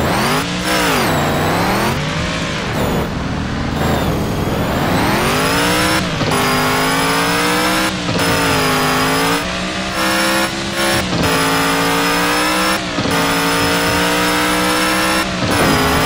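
Vehicle engine revving hard, its pitch swinging down and up over the first few seconds, then held high with brief dips every second or two.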